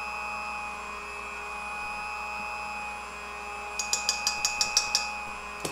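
Vintage Sunbeam stand mixer running at high speed, its beaters whipping egg whites for meringue with a steady motor whine. About four seconds in comes a quick run of about eight light clicks, close together.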